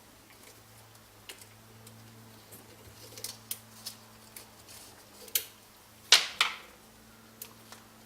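Small metal parts of a dynamo being handled on a workbench: scattered light clicks and clinks, with a louder double clatter that rings briefly about six seconds in, over a steady low hum.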